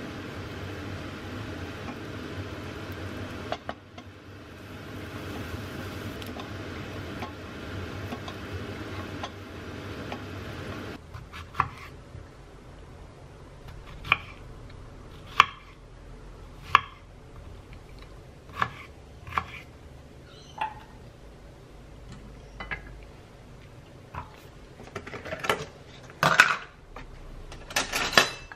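A frying pan sizzling steadily for about the first ten seconds. Then a kitchen knife slicing strawberries on a wooden cutting board: sharp single taps of the blade against the board about once a second, with a quick flurry of clattering knocks near the end.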